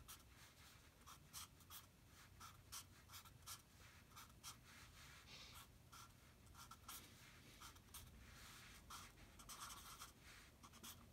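Faint felt-tip marker writing on paper: a run of short, scratchy strokes as a word and a row of asterisks are drawn.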